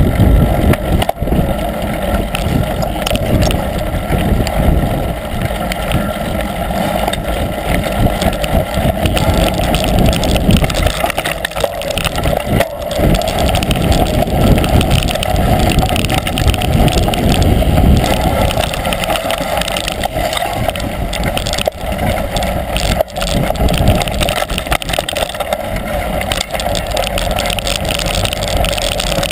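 Mountain bike ride on a dirt forest trail, recorded on the moving bike: steady wind rush and rumble on the microphone, with a few sharp knocks and rattles as the bike goes over bumps.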